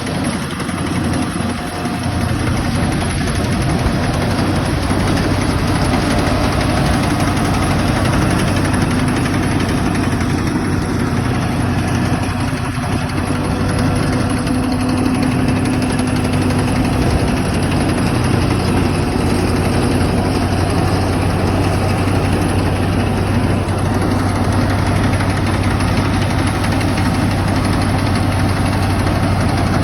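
John Deere tractor engine running steadily at idle, a continuous low hum with rapid even firing pulses.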